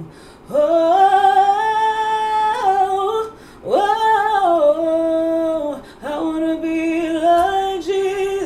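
A woman singing a gospel line unaccompanied, holding long notes in three phrases with short breaks between them.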